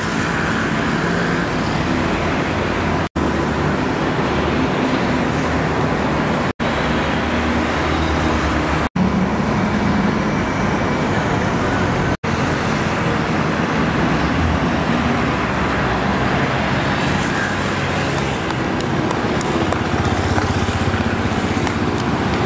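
Steady motor-vehicle and road noise with a low engine hum, broken by four very brief silent gaps.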